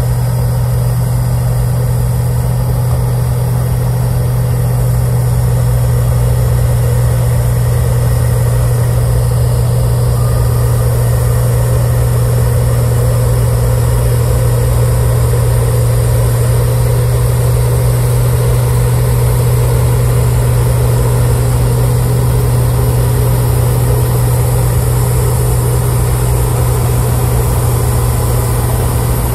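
Caterpillar 938G wheel loader's diesel engine running steadily under load, driving a front-mounted two-stage snow blower as it cuts into a snow bank. A constant deep hum with an even rush of noise over it, unchanging in level.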